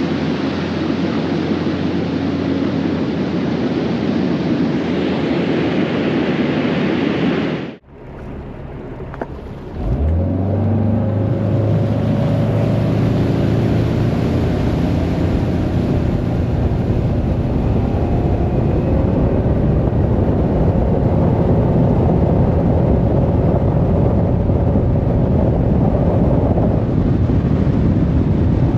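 Outboard motor of a bass boat running at speed, with heavy wind and water rush. About eight seconds in the sound cuts out briefly; then the engine is heard accelerating, its pitch rising, and holds a steady high-revving drone.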